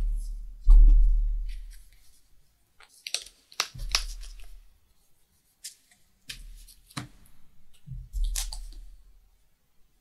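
Trading cards being handled on a playmat: cards picked up, slid and set down, making scattered sharp clicks and rustles, with low thumps on the table, the loudest about a second in.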